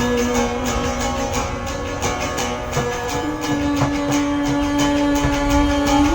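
Band music: guitar with a steady beat and a long held note that steps up in pitch about three seconds in.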